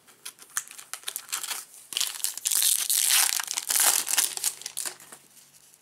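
Foil wrapper of a Topps Stadium Club baseball card pack crinkling loudly as it is torn open and pulled off the cards, from about two seconds in until near the end. It is preceded by scattered light clicks of cards being handled.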